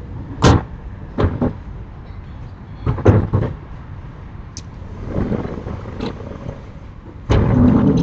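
Sliding storm shutters (amado) being opened on a house's upper floor: a series of sharp knocks and bangs, then a longer, louder rattling slide starting near the end.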